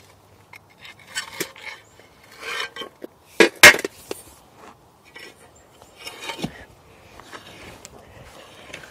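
Hand bucket auger boring into dry soil: scattered metal scrapes and clinks, with one sharp knock about three and a half seconds in.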